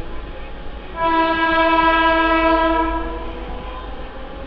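Mumbai suburban electric local train's horn sounding one long, steady blast of about two seconds, starting about a second in, over the rumble of the train running along the track.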